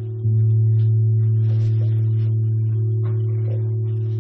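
Slow generative ambient electronic music, produced in real time from the room's light level by a photoresistor and Max/MSP software: a low sustained tone with a few overtones. A new, louder note sounds about a quarter second in and slowly fades.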